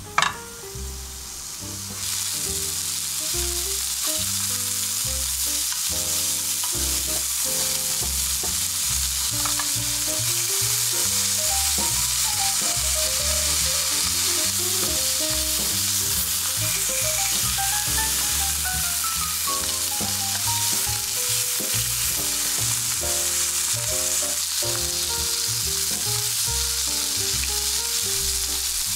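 Pork belly slices sizzling steadily in a nonstick frying pan, with a sharp click of metal tongs against the pan just at the start. The sizzle steps up and gets louder about two seconds in, then holds steady.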